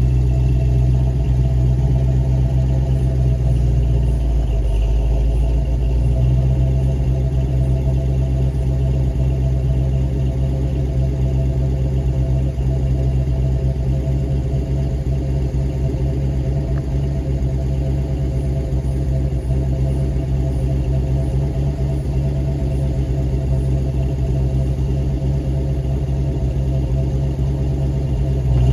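A large engine idling with a steady low rumble that holds even throughout.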